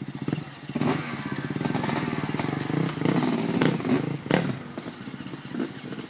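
Dirt bike engine chugging at low revs as the bike creeps down a rough dirt bank, with the throttle opening a little about a second in and again around three to four seconds. A few sharp knocks and clatters come from the bike as it goes over the rough ground.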